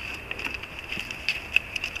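Irregular clicks and light knocks of metal tree-stand climbing sticks and their rope and cam-cleat fittings being handled on a tree trunk, over a steady high-pitched tone.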